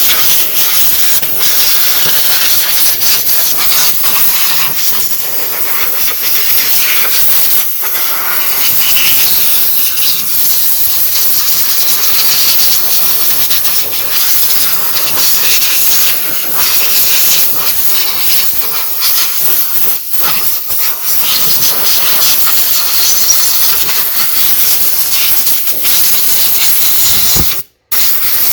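Compressed air from an air hose hissing loudly as it blows excess water off a freshly washed RC car. The blast dips briefly a few times and cuts out for a moment near the end.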